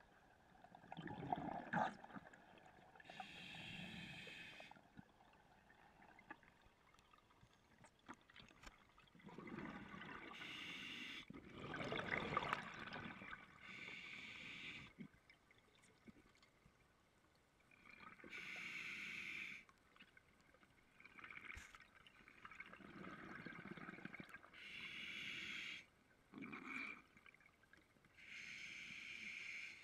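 Scuba diver breathing through a regulator underwater. Hissing inhalations, each lasting a second or two, alternate with bubbly rumbles of exhaled air, several breaths in turn.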